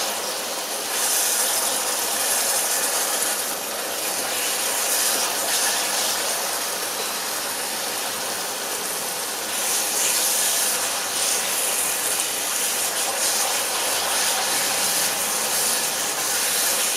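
Rice noodles, tofu and prawns sizzling in a hot non-stick pan as they are stir-fried with chopsticks: a steady hiss that grows louder about a second in and again about ten seconds in.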